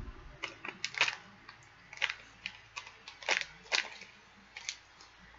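Crinkly plastic snack pouch being handled: irregular sharp crackles and clicks, a dozen or so, in loose clusters.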